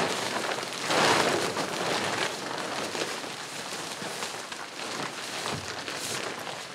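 Plastic tarp crinkling and rustling as it is shaken out and spread flat, loudest about a second in and then softer.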